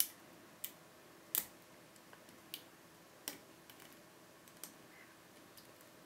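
Light metallic clicks of a lock pick and tension tool working the pin stack of a Kaba Gege pin-tumbler cylinder. The clicks are faint and irregular, about one every half second to a second, and the loudest is a double click about a second and a half in.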